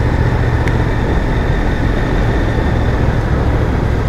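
Motorcycle riding at a steady speed on a gravel road, heard from the bike. Its engine drone blends with wind and tyre noise in a loud, unchanging rush.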